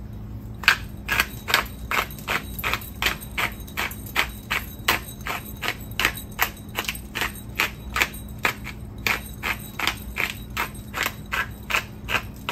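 Coarse ground black pepper rattling in a small container as it is shaken over a raw prime rib, in short, even strokes about three a second.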